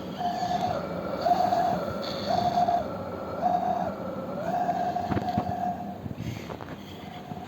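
Small electric tool motor running with a steady whine whose pitch sags roughly once a second, as if pulling against a repeating load. A few sharp clicks come near the end.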